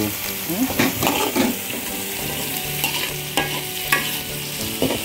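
Chopped bitter gourd frying in hot oil in a steel wok, sizzling steadily, just after it has gone in with the shallots, garlic and chilli. A metal spatula scrapes and clinks against the wok again and again as it is stirred.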